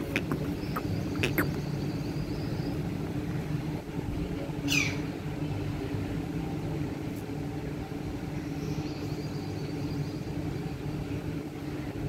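A motor's steady low hum runs throughout, with a few faint clicks in the first second or so and one short, quickly falling chirp about five seconds in.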